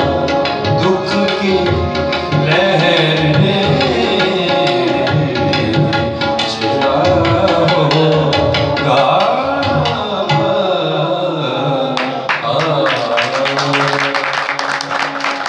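Live ghazal: a man singing in Urdu to harmonium with tabla accompaniment. From about twelve seconds in, dense hand clapping joins as the song closes.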